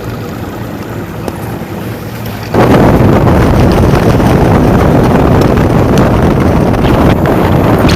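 Wind buffeting the microphone, coming in suddenly and loud about two and a half seconds in, over a steadier low rumble.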